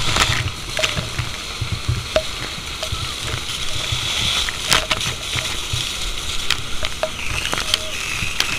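Fire hose water jet spraying onto smouldering debris and leaves: a steady hissing, sizzling spatter, with scattered sharp ticks and cracks.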